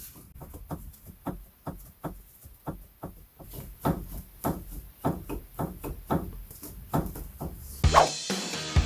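Repeated light knocks, a few a second, from a worn Peugeot 308 track rod end being worked back and forth, the clunk of play in the damaged joint. Music with drums comes in near the end.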